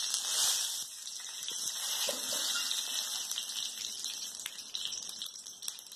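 Mustard seeds sizzling in hot coconut oil in a kadai: a hiss, loudest in the first second as the seeds go in, then easing, with many small crackling pops as the seeds begin to splutter.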